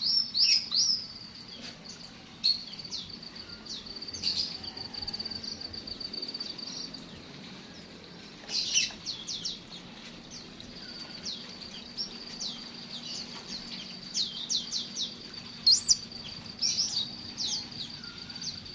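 Aviary birds calling: a steady, high, rapid trill runs on while clusters of quick, downward-sweeping high chirps come and go, loudest about three-quarters of the way through.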